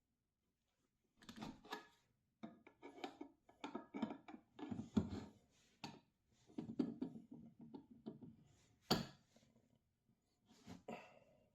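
Small metal workshop parts being handled and fitted, with irregular clinks, scrapes and rubs and a sharp click about six seconds in and again about nine seconds in.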